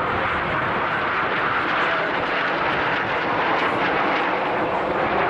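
Frecce Tricolori Aermacchi MB-339 jet trainers flying overhead in formation, their turbojet engines heard as a steady rushing jet noise.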